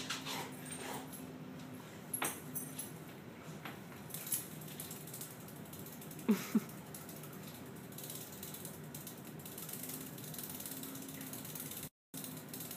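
Dog pawing and mouthing at a katydid on a hardwood floor: scattered small ticks and rasps, with a short dog whine about six seconds in.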